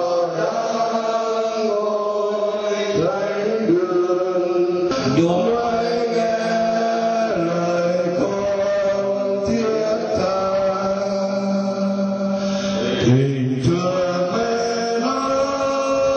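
A group of men's voices singing slowly together in unison, holding long notes that change every second or two.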